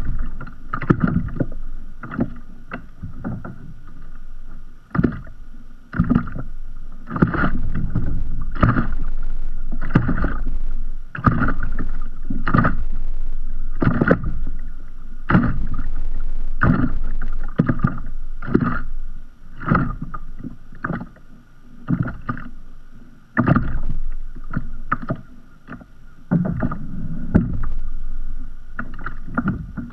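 Small sea waves lapping and slapping against the hull of a drifting kayak, in irregular hollow knocks about one or two a second.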